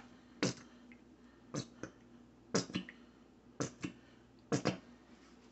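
Plastic squeeze bottle of Grey Poupon Dijon mustard being squeezed out, sputtering in short sharp pops, mostly two at a time, about once a second.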